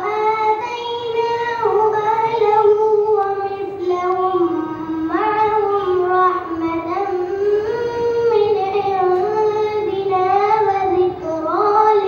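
A boy's unaccompanied solo voice chanting a religious recitation into a microphone. Long held notes glide and turn between pitches, with a short breath about eleven seconds in.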